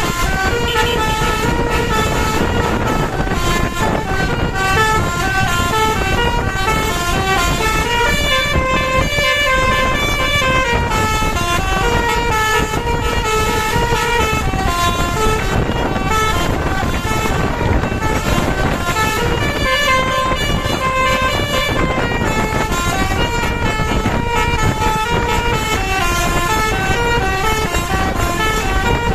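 A bus's telolet horn, a bank of multi-tone air horns, playing a melody: pitched notes stepping up and down several times a second without a break, over a steady low rumble of noise.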